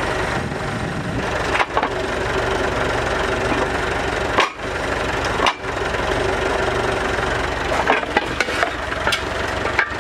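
International B414 tractor's four-cylinder diesel engine running steadily. A few sharp clanks toward the end come as the hydraulic lift raises a heavy rear blade on the three-point linkage.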